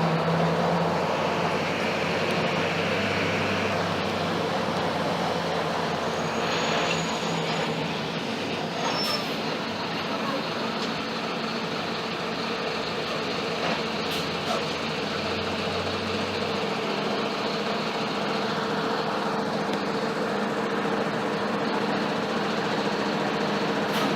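Mercedes-Benz OF-1721 BlueTec 5 bus's diesel engine running steadily as the bus drives, a continuous drone with a few short clicks.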